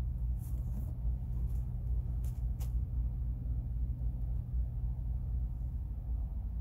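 A steady low hum and rumble, with a few faint light clicks about half a second and two seconds in.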